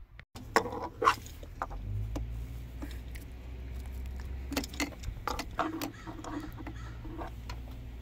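Light clicks, knocks and rattles of hands working around a Chevrolet S10's engine bay, over a steady low rumble.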